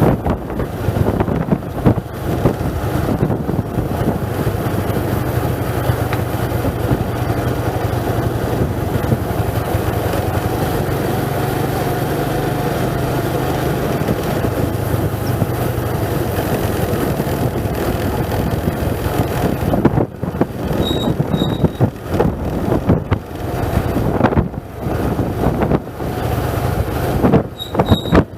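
A vehicle's engine running steadily with wind noise on the microphone. Short high-pitched beeps come twice in the last third.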